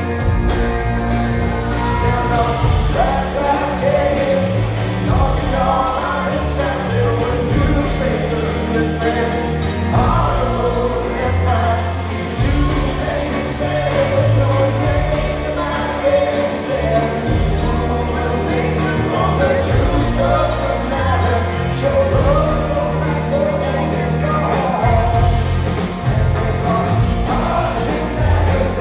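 Live rock band playing a song with singing over full bass and drums.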